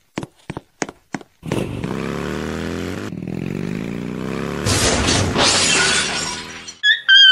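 Cartoon sound effects of a motorcycle engine running, its pitch sliding, then a crash with breaking and shattering about two-thirds of the way through. A few sharp clicks come before the engine starts, and a short high-pitched sound follows near the end.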